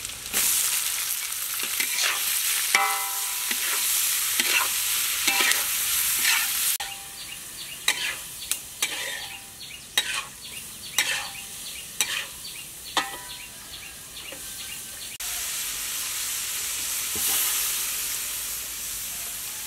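Hot oil sizzling in a metal wok as garlic, spring onion, squid and pig tongue stir-fry, with a metal spatula scraping and clanking against the wok many times. The sizzle drops abruptly about seven seconds in and comes back louder a little past halfway.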